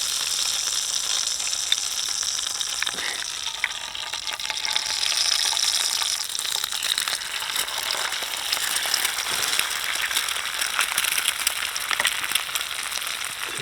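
Chips frying in hot oil in a pan over a campfire: a steady sizzle with many small pops and crackles.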